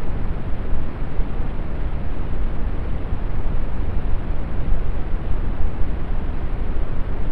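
Steady brown noise: an even, deep hiss with most of its weight in the bass, thinning toward the treble, unchanging throughout.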